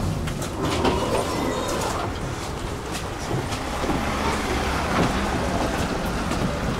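Tram running along its rails: a steady low rumble with irregular clicks and knocks from the wheels on the track.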